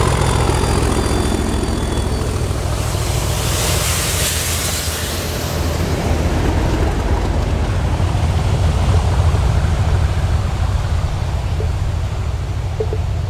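Class 37 diesel locomotives hauling a rail head treatment train past and away, the English Electric engine's low growl steady throughout. The noise of the passing train peaks briefly about four seconds in as its tail goes by, and the engine growl carries on after the train has gone from sight.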